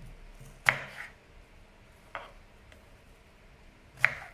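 Kitchen knife chopping raw green banana into cubes on a wooden chopping board: a few sharp knocks of the blade striking the board, spaced a second or more apart.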